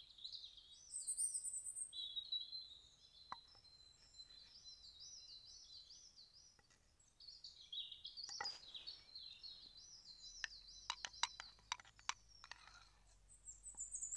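Small songbirds singing, with a continuous high-pitched, rapidly repeating warble. In the second half come a series of sharp taps and clicks.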